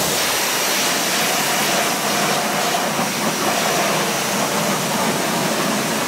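Pressure washer jet spraying water onto a car wheel and tyre, a steady hiss, rinsing the soap off. It cuts off suddenly at the end.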